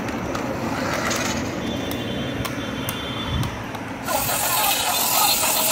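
Remote-control toy car's small electric motor whirring as it drives across a hard floor, with a change in the sound about four seconds in.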